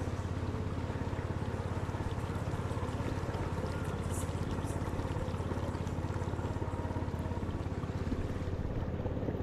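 Small motorboat's engine running steadily with a fast, even throb.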